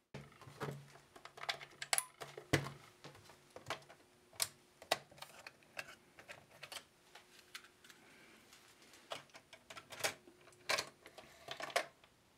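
Irregular plastic clicks and clacks from handling Grundig desktop dictation machines: cassette compartment lids opened and closed and control buttons pressed. A faint steady hum sits under much of it.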